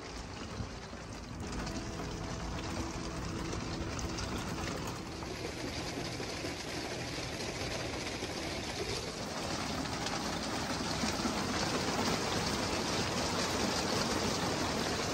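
Heavy monsoon rain pouring down, a steady rushing hiss that grows gradually louder.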